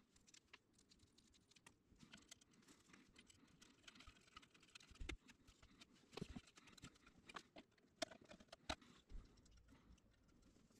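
Faint, irregular clicks and light knocks of small parts being handled and fitted into the sheet-metal case of a battery charger.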